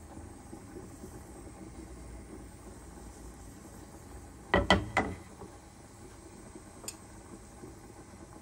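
Faint steady sizzle of oil and turmeric heating in a frying pan. About halfway through comes a quick run of three or four sharp knocks, and a single faint click a couple of seconds later.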